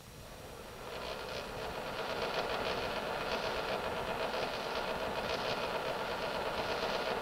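Squirrel-cage blower impeller, unbalanced by a lump on its blades, spinning up over the first second or two and then running with a fast, even rattle: the vibration noise of an unbalanced impeller.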